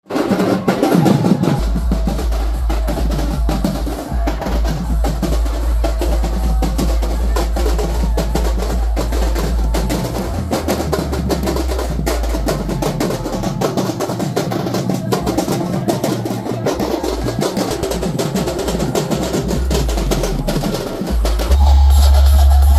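Loud music with drum-heavy percussion and a deep, sustained bass, played through a large DJ sound system. The bass gets louder near the end.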